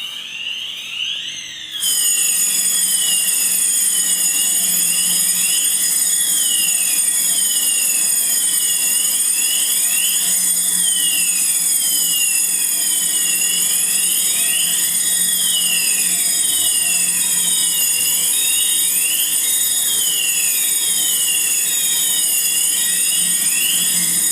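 Fire alarm sounder going off, with repeated rising-and-falling siren sweeps, several overlapping, about one every second or two. It gets louder about two seconds in. This is the alarm set off by testing an addressable smoke detector with a smoke tester.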